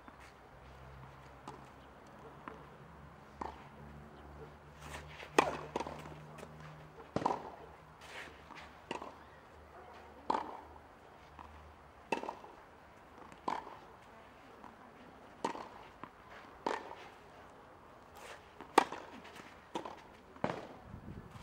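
Tennis ball bounced on a clay court and struck with a racket during serve practice: a sharp pop or knock every second or two, the loudest about five seconds in and near the end. A low steady hum runs underneath for the first several seconds.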